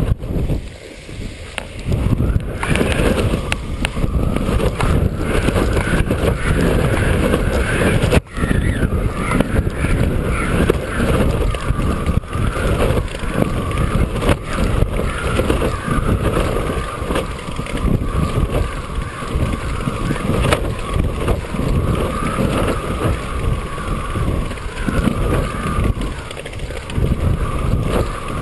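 Wind buffeting the microphone of a camera drone in flight, a heavy rumbling rush, with the wavering whine of the drone's propeller motors running through it.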